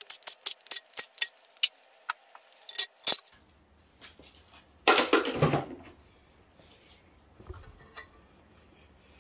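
Loose steel bolts from an engine's timing cover clinking against each other in a hand: a quick, irregular run of sharp metallic clinks. About five seconds in comes a louder, brief rattle, and near the end a few faint knocks as the cover is worked free.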